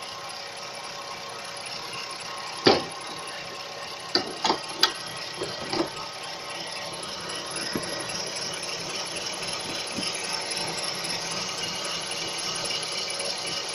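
Ravon Nexia R3 car running with a steady mechanical noise and a thin, steady high whistle: the whistle the owner notices at 2,300 km. A handful of sharp clicks come about three to six seconds in, and the running noise grows a little louder in the second half.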